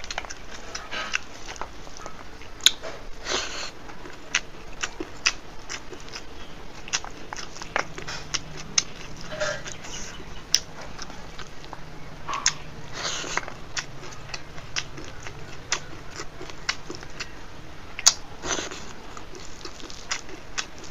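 Close-miked eating sounds of a person chewing a dal-and-rice meal: many irregular wet mouth clicks and smacks, with a few louder ones.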